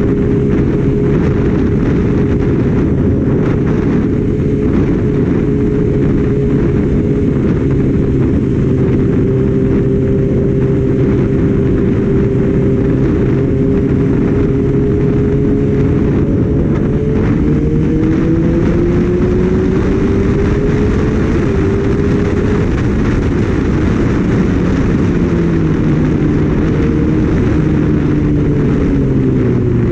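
Kawasaki Ninja ZX-6R's inline-four engine running at a steady cruise under heavy wind noise on the microphone. The engine note rises gradually past the middle and drops back near the end.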